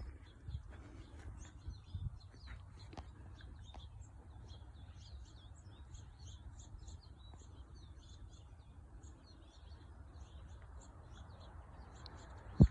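Small birds chirping and twittering, many short calls overlapping throughout, over a steady low rumble. One brief loud knock near the end.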